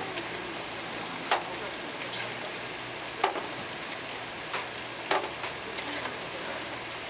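Tteokgalbi (minced short-rib patties) sizzling steadily on a hot flat-top griddle, with several sharp clicks of a metal spatula striking and scraping the griddle as the patties are turned.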